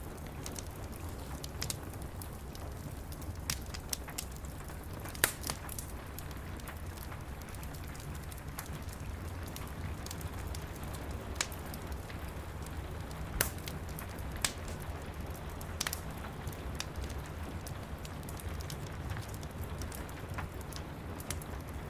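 Wood fire crackling, with scattered sharp pops, the loudest about five seconds in and again around thirteen seconds, over steady rain with a low rumble.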